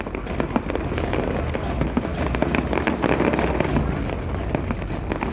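Aerial fireworks crackling and popping: a dense run of sharp small bangs in quick succession over a steady low rumble.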